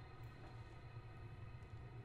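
Quiet, steady low hum with a few faint ticks.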